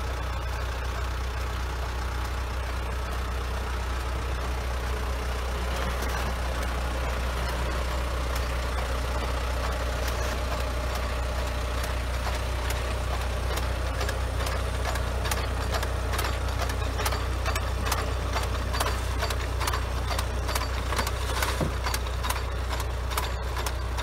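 John Deere tractor's diesel engine running steadily at crawl speed as it pulls a hand-fed mechanical vegetable transplanter, a constant low hum. From about six seconds in, frequent light clicks and knocks sound over it, growing denser towards the end.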